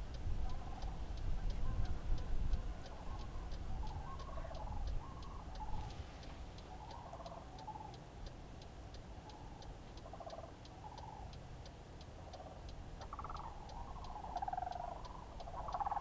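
Sandhill cranes calling, rolling bugling calls coming in bunches that grow more frequent near the end. A faint, even ticking about three times a second runs under them, and a low rumble fills the first few seconds.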